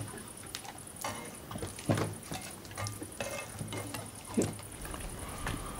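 Cutlery and dishes clinking and scraping at a dinner table: scattered light knocks and clicks, about a second apart.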